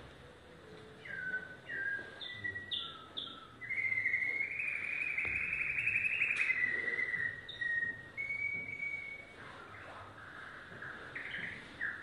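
Domestic canary singing: a string of short whistled notes, then a long, fast trill starting about four seconds in and lasting about three seconds, followed by more varied phrases.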